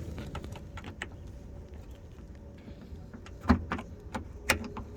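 Scattered light clicks and two sharper knocks, about 3.5 and 4.5 seconds in, from hands handling parts in the engine bay, over a low steady rumble.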